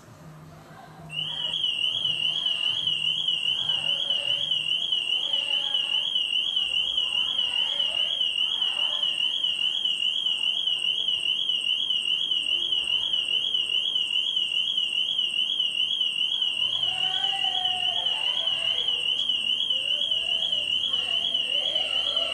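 Car alarm sounding a continuous, fast high-pitched warble that starts about a second in and keeps going. The uploader believes it was set off deliberately.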